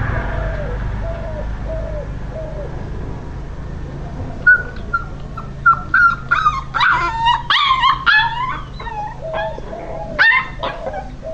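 Puppy whimpering in a series of short, pitched cries, which turn higher and louder into yelps from about halfway through, over a steady low hum.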